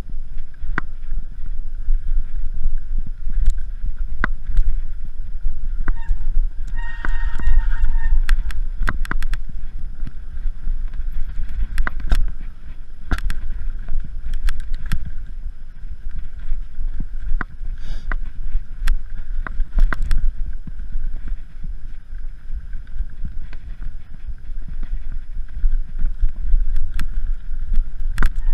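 Mountain bike riding fast over slickrock and dirt trail, with heavy wind rumble on the camera's microphone and the bike rattling and clicking over the bumps. A short high squeal about seven seconds in.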